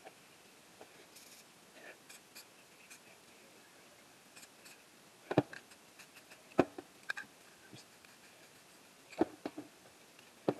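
Spray paint cans being handled: scattered light ticks and four sharp knocks, like cans being picked up and set down, over a quiet background.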